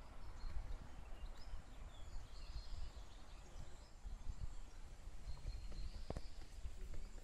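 Wind rumbling on the microphone, with small birds chirping faintly and high now and then, and a few soft taps including one sharper knock about six seconds in.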